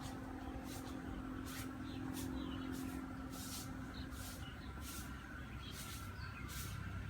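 A dog chewing food, with short crisp sounds about every half second over a low steady hum.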